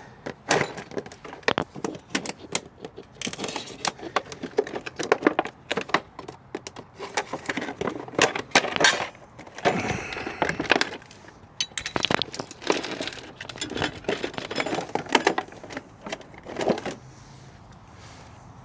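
Metal transmission parts and tools clinking, knocking and rattling as they are handled by hand, a scooter's clutch and variator being taken apart. The clatter dies down near the end.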